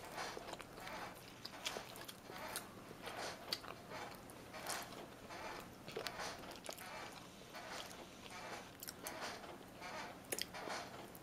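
Irregular small crackles and clicks of a hard-boiled egg's shell being cracked and peeled by hand, mixed with chewing and biting sounds.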